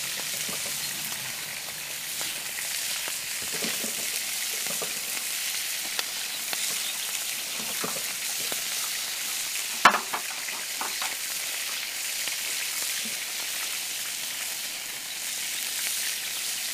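Adana kebabs sizzling steadily as they fry in their own fat in a skillet over a campfire. A single sharp click comes about ten seconds in.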